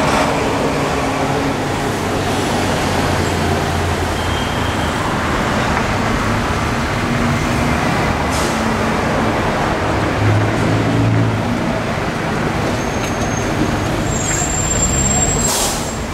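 Street traffic: road vehicles, buses among them, running close by in a steady din, with a thin high squeal and then a short hiss near the end.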